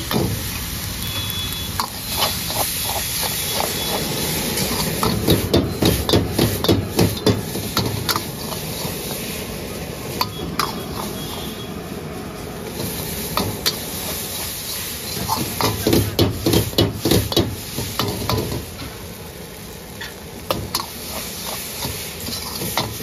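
Steel ladle clanging and scraping against a wok as rice is stir-fried, with two runs of rapid strikes, over the steady hiss of a gas burner.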